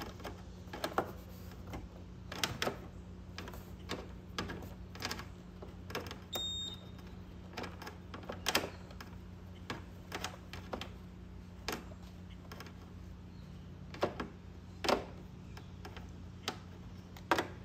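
Irregular clicks and taps of a hand tool working screws into a motorcycle's plastic body panel, over a steady low hum.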